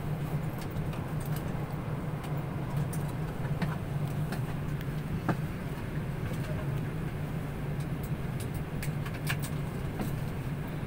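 Steady low hum of an airliner cabin parked at the gate, the air-conditioning and ventilation running, with scattered light clicks and knocks from passengers moving about.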